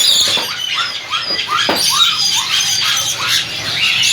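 Many caged parrots calling together: a dense chatter of short, overlapping squawks and chirps, many of them falling in pitch.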